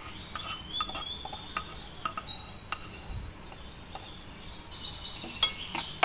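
Birds chirping in the background, a series of short high chirps and brief whistles. Near the end come a few sharp clicks of a metal spoon against a china plate.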